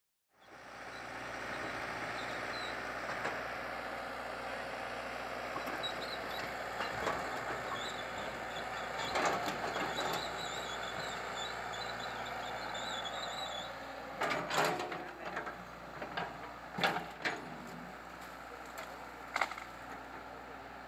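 Caterpillar hydraulic excavator's diesel engine running steadily. In the second half come several sharp cracks and knocks from the machine working through trees and brush.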